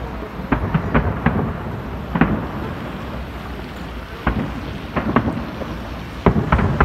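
Fireworks exploding overhead: about ten booming bangs at uneven intervals, some in quick pairs, over a steady low rumble.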